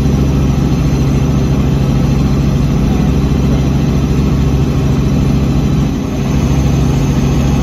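Helicopter in flight, heard from inside the cabin: a loud, steady engine and rotor drone with a fast low beat.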